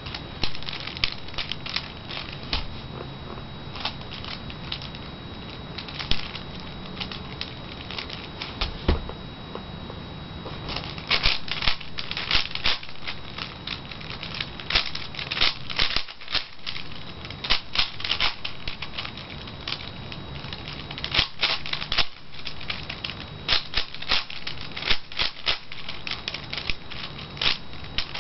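V-Cube 5x5 puzzle cube being turned by hand: quick runs of plastic clicking and clacking as its layers turn. The clicks are sparse for the first ten seconds or so, then come in dense fast runs.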